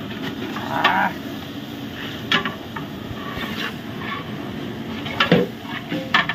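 Raw mutton pieces tipped from a steel bucket into a large aluminium pot of masala. A long metal spoon then stirs the meat and clinks against the side of the pot a few times.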